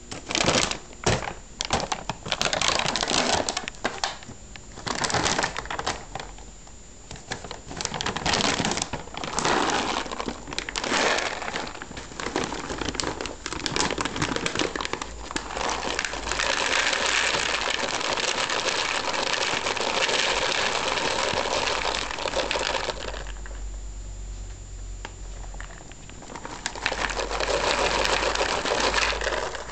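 Irregular rustling and crinkling noises, coming in short bursts at first, then running steadier for several seconds, dropping off, and picking up again near the end.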